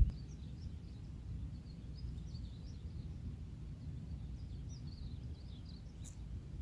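Birds chirping lightly over a low, steady rumble, with a single sharp click near the end.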